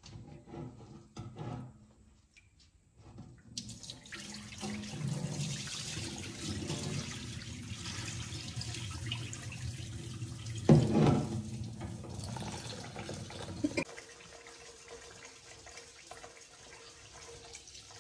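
Sticky rice being washed in a metal basin at a kitchen sink: at first quiet swishing and small splashes of hands in the water. Then a steady rush of tap water and water splashing as the cloudy rinse water is poured off, with one loud splash past the middle and a softer steady stream of the tap refilling the basin near the end.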